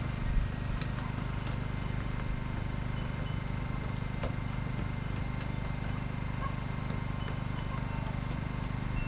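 A steady low mechanical hum, even throughout, with a few faint taps.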